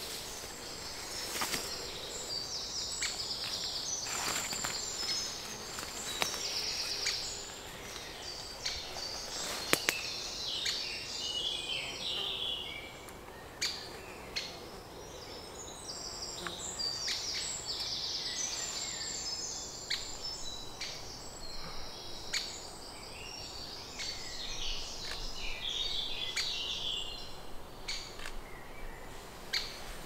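Great spotted woodpecker chicks begging for food from the nest, a high, continuous chattering that swells and fades in waves, with a few sharp clicks scattered through it.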